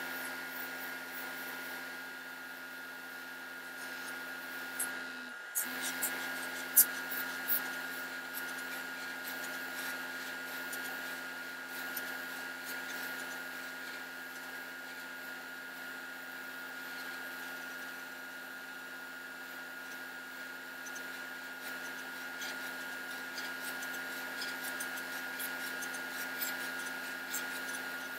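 Steady electric motor hum with a light hiss, breaking off for a moment about five and a half seconds in, with a few light clicks scattered through it.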